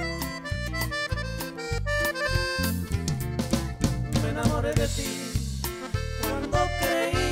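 Norteño band music: an accordion playing the melody over a bouncing bass line and drum kit.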